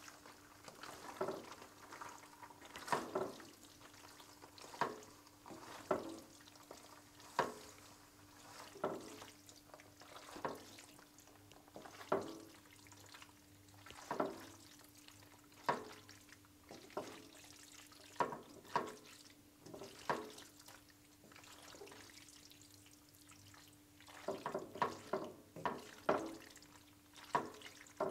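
Fettuccine being tossed through a thick cream sauce in a nonstick pan with spatulas: wet slapping, squelching strokes about every second and a half, coming quicker near the end, over a faint steady hum.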